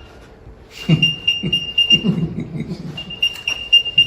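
Apple AirTag playing its locate sound: runs of quick high-pitched beeps, about five a second, with short pauses between the runs. Low mumbling voice partway through.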